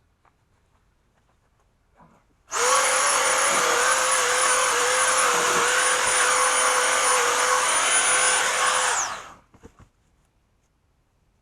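Electric power tool motor switched on about two and a half seconds in, running at a steady speed with a high whine for about six and a half seconds, then released and spinning down.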